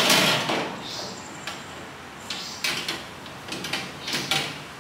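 Plastic food containers being slid and set down on a countertop: several brief scraping and knocking sounds, the loudest right at the start.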